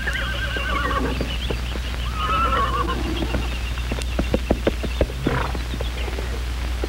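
Horses whinnying, one call at the start and another about two seconds in, followed by a run of hooves clopping on hard ground.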